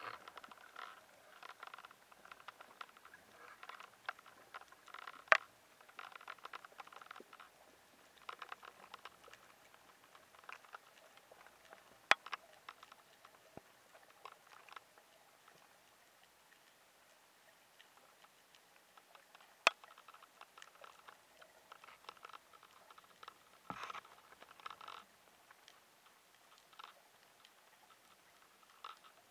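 Underwater crackling and clicking: scattered soft ticks in irregular clusters, with three sharp single clicks spread through and a louder cluster near the end.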